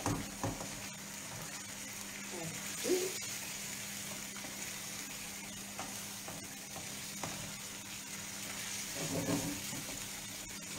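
Tomato sauce sizzling steadily in a frying pan on a gas hob, with a few brief clatters as it is stirred.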